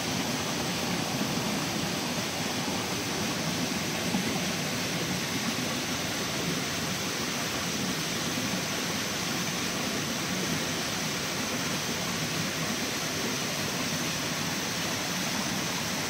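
Mountain headwater stream rushing over rocks: a steady, unbroken noise of flowing water.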